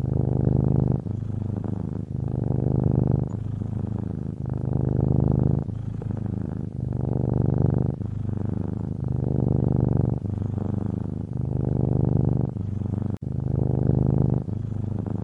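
Domestic cat purring without a break, in a slow, even rhythm of louder and softer phases of about a second each, the purr carrying on through both in-breath and out-breath.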